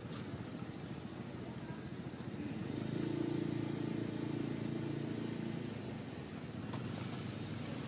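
A low motor-engine drone that swells about two and a half seconds in and fades again about three seconds later.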